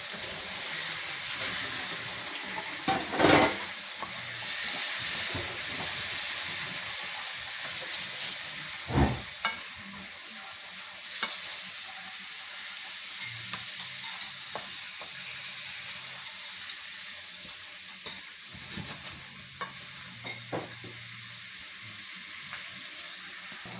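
Food sizzling in hot oil in a pan while it is stirred. A spoon knocks against the pan a few times, loudest about three and nine seconds in, and the sizzle fades gradually toward the end.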